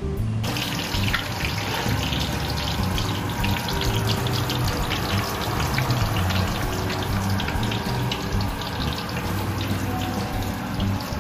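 Flour-coated golden pompano trimmings (head, tail and skin) deep-frying in a wok of oil: a steady crackling sizzle that starts about half a second in.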